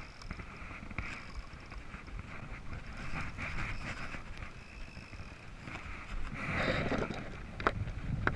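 Wind on the microphone and choppy sea water against a plastic fishing kayak, as a steady rushing noise. It swells louder about six and a half seconds in, with a sharp knock shortly after.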